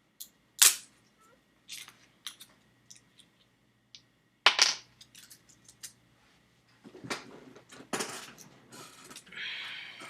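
Close handling noises: two sharp knocks, about half a second and four and a half seconds in, with scattered lighter clicks between them, then a few seconds of rustling near the end.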